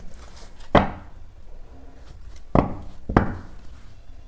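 Three sharp knocks from a tarot card deck being handled on a table: one about a second in, then two close together near the end.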